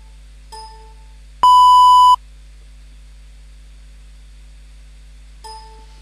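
Beep test software sound cues: a short chime about half a second in and again near the end, and a loud, steady, high beep lasting under a second about one and a half seconds in.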